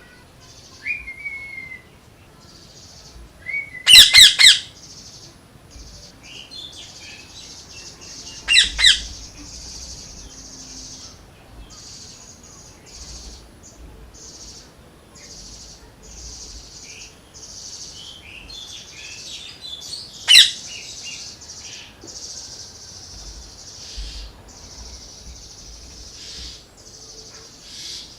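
Parrot calling: a quick burst of several loud squawks about four seconds in, two more near nine seconds and a single one around twenty seconds. Softer chirps and a faint, stop-start high hiss fill the gaps.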